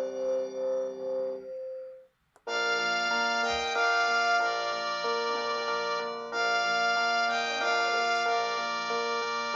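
Panasonic KX-PRS110 cordless phone handset playing its electronic ringtone melodies. One tune ends about two seconds in, followed by a short gap and a click, then a new polyphonic keyboard-like ringtone begins.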